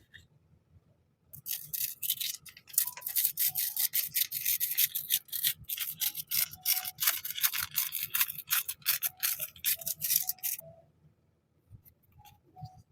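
Rapid, scratchy rubbing and rustling of packaging being handled, in a run of dense strokes that starts about a second in and stops suddenly near the end.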